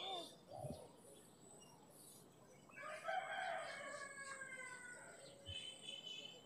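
A rooster crowing once, faint, a single long call starting about three seconds in and lasting about two seconds.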